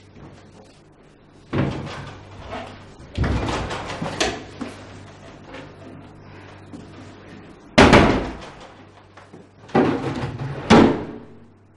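Wooden wardrobe doors being opened and banged shut, about six knocks and bangs with the loudest about two-thirds of the way through.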